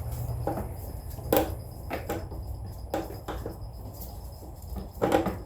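Scattered light metallic clicks and taps of a screwdriver and a Phillips screw being worked out of a riding mower's cover panel, a few seconds apart, over a steady low hum.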